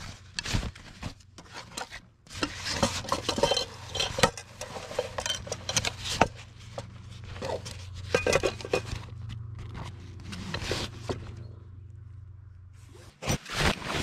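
Camp gear being handled and packed: nylon stuff sacks and fabric rustling and rubbing, with light clinks and scrapes of metal cookware and fittings. A steady low hum runs underneath and stops about a second before the end.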